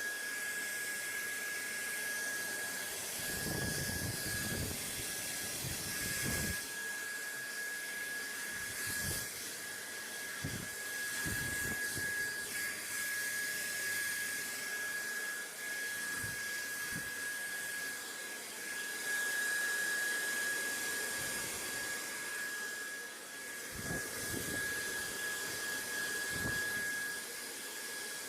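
Steady rushing white noise with a constant thin high whine running through it, broken now and then by brief low rumbles.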